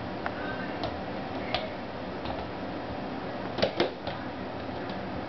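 Baby pygmy goats' small hooves tapping and clattering on a hard wooden floor as they jump about: a scattering of sharp taps, the loudest two in quick succession about three and a half seconds in, over a steady hiss.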